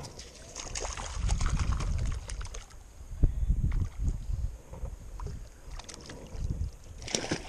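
Water splashing and sloshing as a hooked trout is dipped and swung in the shallows on the line, with wind rumbling on the microphone.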